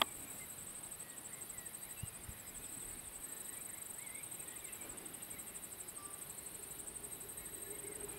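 Insects chirping in a steady, high, rapidly pulsing trill, with a few faint bird chirps.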